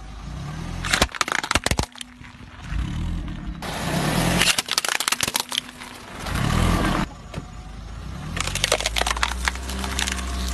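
A car tyre rolling slowly over brittle plastic objects, among them a plastic face mask, and crushing them, over the low rumble of the car. There are three bursts of cracking and snapping as they break.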